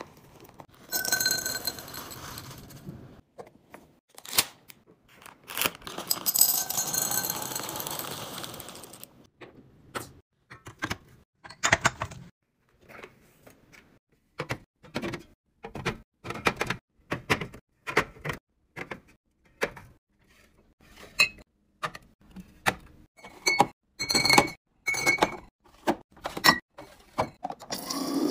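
Restocking sounds: two stretches of rustling, then a long run of sharp clinks and knocks as cans and containers are set down on fridge shelves, some with a short ringing tone.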